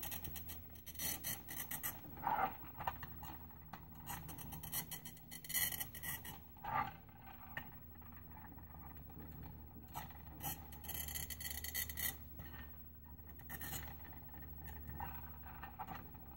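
Bottle cutter's cutting wheel scoring a square glass bottle as it is worked along the rollers: faint, irregular scratching and clicking, in short strokes with pauses between.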